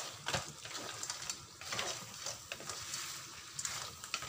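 Wooden spatula stirring crab pieces through thick chili sauce in a sizzling wok, with irregular scrapes and knocks against the pan.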